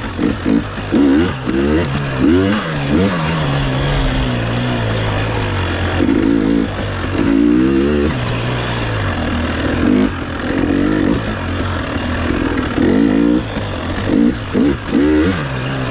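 KTM 300 XC-W two-stroke enduro motorcycle engine revving up and dropping back over and over as the throttle is blipped and rolled off, with a couple of longer pulls near the middle.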